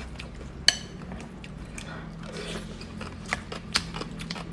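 Close-up eating sounds: chewing and crunching, with a utensil striking the dish once sharply, with a brief ring, just under a second in, and a few lighter clicks after.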